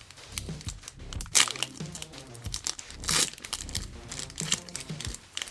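Foil wrapper of a Pokémon TCG booster pack crinkling and tearing as it is opened, in sharp bursts about a second in and again about three seconds in.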